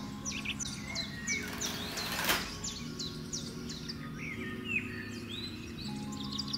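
Birds chirping outside, a string of short, sharp, downward-sliding chirps repeating through the whole stretch, with one brief rustle about two seconds in.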